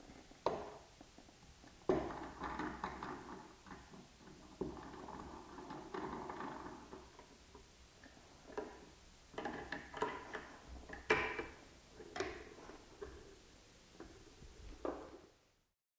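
Steel C-clamps being positioned and screwed down by hand onto glued plywood strips: scattered clicks, knocks and scraping of metal on wood, the loudest knocks about two seconds in and about eleven seconds in. The sound cuts off shortly before the end.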